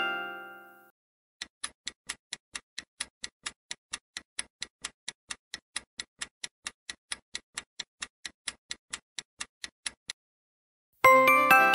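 Clock-ticking sound effect counting down a quiz timer: rapid, even ticks at about four to five a second that stop about ten seconds in. A bright multi-note chime, the answer-reveal sound, fades out in the first second, and another one rings out near the end.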